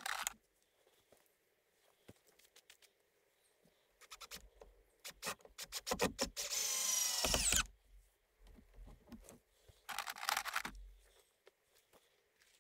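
Cordless drill driving screws into 2x lumber: bursts of rapid clicking, then two longer runs of the motor, the first about six seconds in with its pitch falling, the second about ten seconds in.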